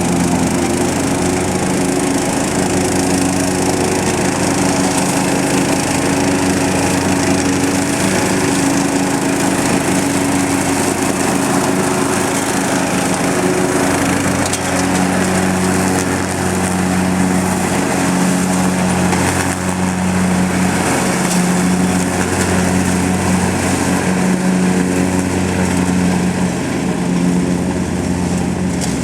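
Lawn mower engine running steadily under load while its all-weather mulching blade shreds leaves, with a constant rushing, crackling hiss over the engine note. About halfway through, the engine's tone shifts lower.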